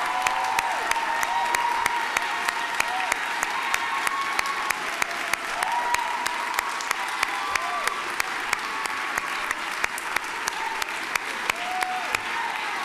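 A crowd applauding steadily, dense clapping with a few voices calling out among it.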